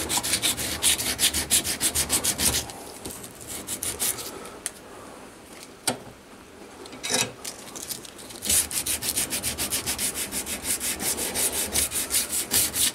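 Hand file scraping back and forth along the edge of an aluminium plate held in a vise, cleaning it up in quick, even strokes, about four or five a second. The strokes stop after about two and a half seconds, with a couple of light knocks in the pause, and start again about eight and a half seconds in.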